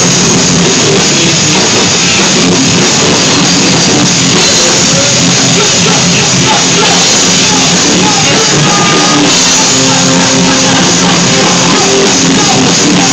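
Live rock band playing loud, with a drum kit and a singer over the band, the sound dense and unbroken.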